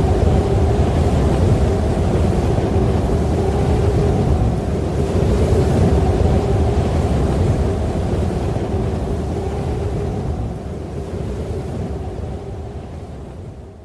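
Strong mountain wind howling, with a heavy low rumble of gusts buffeting the microphone under a steady howling tone. It fades down over the last few seconds.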